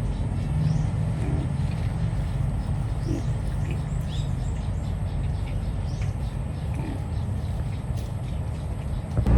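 A steady low rumble with short, high bird-like chirps scattered through it.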